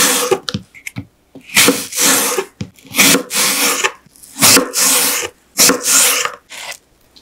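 Kitchen knife slicing thinly through a crisp apple wedge and meeting a wooden cutting board, a short rasping stroke with each slice, about seven in all.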